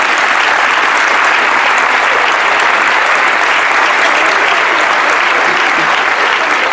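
Crowd applauding steadily: many hands clapping together in a dense, even patter.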